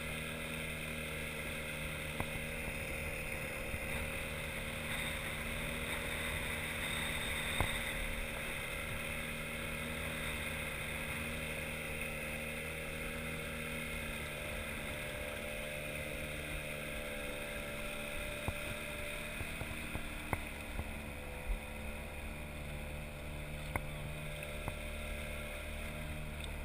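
Outboard motor of an inflatable boat running steadily, with a faint shift in its pitch about two-thirds of the way through and a few light knocks.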